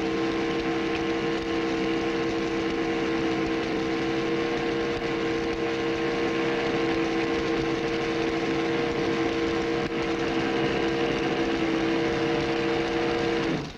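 Small electric motor of a tabletop molecule-motion model running steadily at its highest setting, a hum with two strong steady notes, while small plastic balls rattle about inside the box. It cuts off suddenly just before the end.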